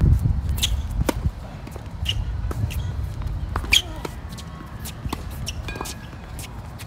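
Tennis rally on a hard court: sharp racket-on-ball strikes, starting with a serve just after the start and followed by ground strokes, the loudest a forehand about four seconds in. Shuffling footsteps and brief shoe squeaks run between the hits, over a steady low rumble.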